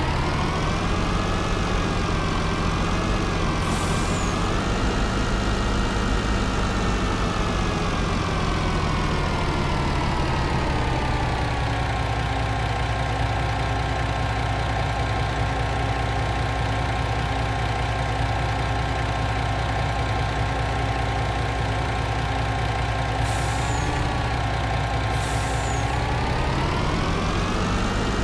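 Engine of a Kubota FS20 cutting machine running steadily. Its speed eases down about a third of the way through, holds, and picks up again near the end, with a few brief high ticks.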